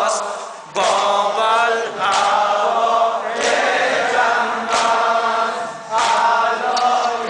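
Man chanting a Shia mourning recitation (noha) from a book into a microphone, heard over a PA. His voice wavers in long sung phrases broken by short pauses.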